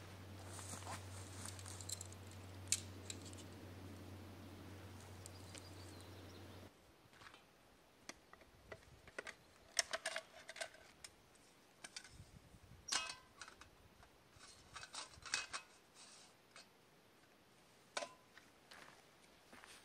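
A tent being pitched, with a few clicks over a steady low hum for the first six seconds or so. Then scattered light clicks, clinks and rattles of camp cooking gear as a small metal pot, a stove and plastic containers are handled and set out.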